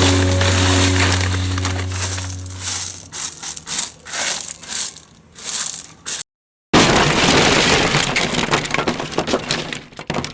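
Background music fades out, then gritty crunching and scraping comes in irregular bursts. After a short break it returns as a denser, continuous crunching that tails off near the end.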